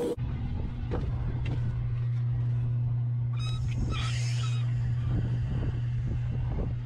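Outdoor hose faucet turned by hand, its valve giving a brief squeak about halfway through, over a steady low hum.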